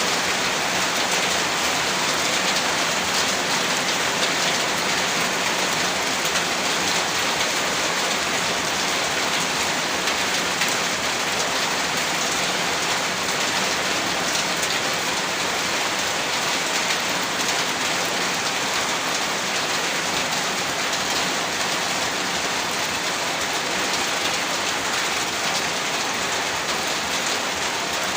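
Heavy rain falling steadily, a dense hiss of drops pattering on a surface, with no change in strength.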